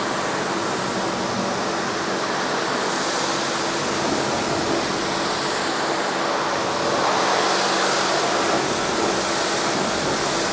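Electric pressure washer spraying a high-pressure water jet onto a car's paintwork: a loud, steady hiss of spray over the faint hum of the motor-driven pump.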